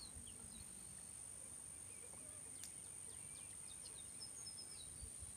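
Faint open-air ambience: small birds chirping in short scattered calls over a steady high-pitched whine, with a single sharp click about halfway through.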